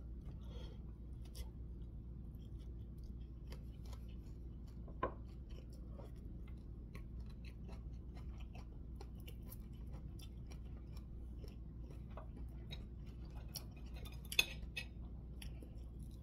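A person chewing food with faint mouth clicks and smacks, a sharper click about five seconds in and a louder one near the end.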